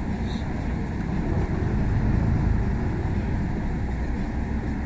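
Inside a moving MAN 18.280 coach: the steady low rumble of its D0836 six-cylinder diesel engine mixed with road noise.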